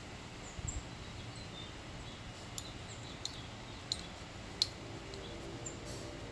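Backyard ambience: a steady low rumble with faint, short high-pitched bird chirps and a few sharp ticks scattered through it.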